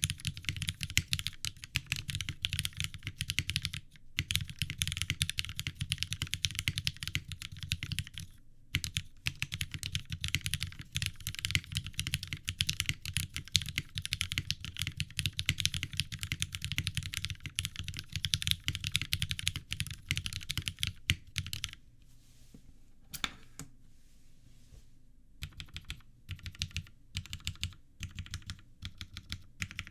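Fast typing on a custom mechanical keyboard with lubed vintage Cherry MX Black linear switches, GMK keycaps and an aluminium plate: a dense run of keystrokes that all but stops about two-thirds of the way through, then resumes in sparser strokes.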